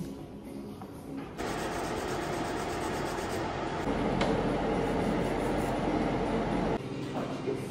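A steady whirring machine noise starts abruptly about a second and a half in and cuts off suddenly near the end.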